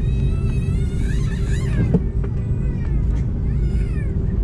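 Steady low rumble inside the cabin of an Airbus A330-300 taxiing after landing, with high, wavering cries rising and falling over it several times.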